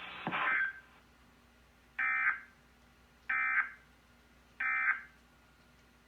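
Emergency Alert System end-of-message signal: three short bursts of digital data tones, about 1.3 s apart, marking the end of the alert. A brief hiss ends just before them, about half a second in.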